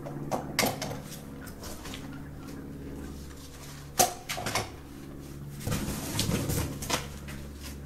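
Gear being handled and unpacked from a cardboard box. There are a few light clicks, a sharp knock about four seconds in, and cardboard rustling and knocking near the end, over a steady low hum.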